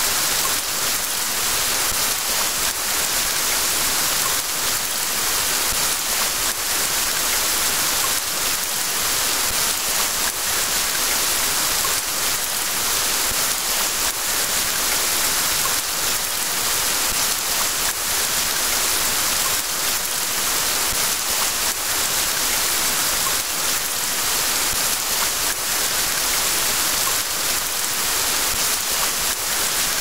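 Rain sound effect: steady rain falling, an even hiss of drops that holds unchanged throughout.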